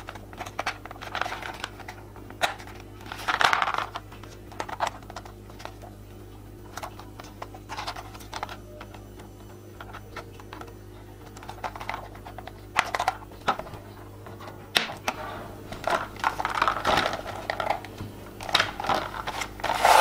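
Hard plastic clicking, tapping and rubbing as snap-on wheels are pressed onto the metal axles of a plastic toy sports car, in irregular bursts with a few sharper clicks.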